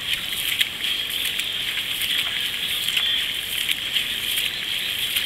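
Canoe paddles splashing into the water stroke after stroke over a steady rush of water along the hull of a nine-seat racing canoe, with irregular sharp splashes and knocks throughout.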